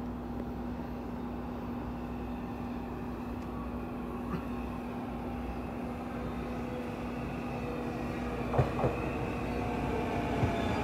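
Metro-North M8 electric multiple-unit train approaching and getting louder, with a few sharp wheel clicks over rail joints about eight to ten seconds in and a faint rising motor whine near the end.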